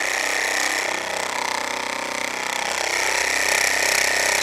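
A Shurflo 4008 12-volt four-chamber diaphragm water pump runs dry with its pump head opened up. The motor drives the diaphragms with a loud, steady mechanical buzz.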